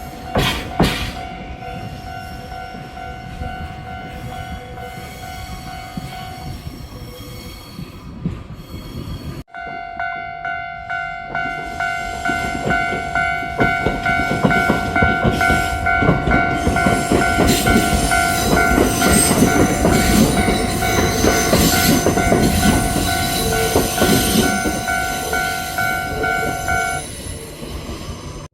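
Kintetsu electric train passing, its wheels clacking rhythmically over the rail joints and growing louder after the midpoint. A steady high ringing tone runs alongside and stops near the end. The sound breaks off abruptly about a third of the way in.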